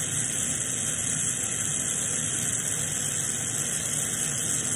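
Glassblowing bench torch burning with a steady hiss while a borosilicate colour rod is heated in its flame.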